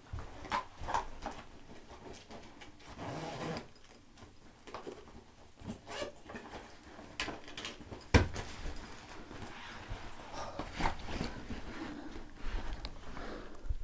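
Footsteps and the handling rustle of a hand-held phone, with scattered knocks and one sharper thump about eight seconds in.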